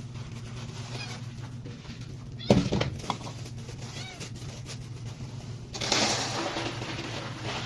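House cat meowing softly a few times over a steady low hum, with a sharp knock about two and a half seconds in and a rushing hiss starting about six seconds in that fades out.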